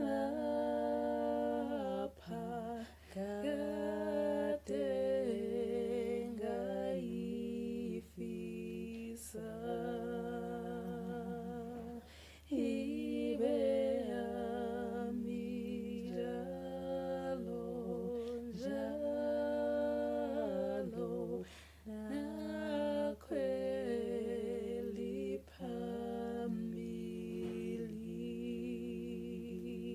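A woman's voice singing a gospel song a cappella in sustained phrases with vibrato, layered as two parts in harmony, with short breaths between phrases.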